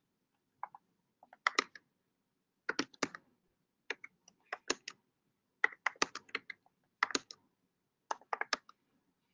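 Typing on a computer keyboard: keystrokes in quick clusters of a few, about one cluster a second, with short pauses between.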